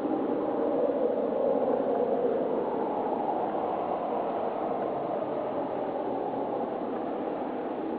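A steady, distant roar of unknown origin with no clear pitch, swelling slightly in the first few seconds and then easing a little.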